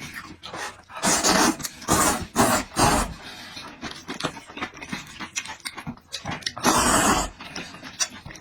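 Close-up eating sounds from a person: noisy slurping and chewing with heavy mouth breaths, in a series of irregular bursts.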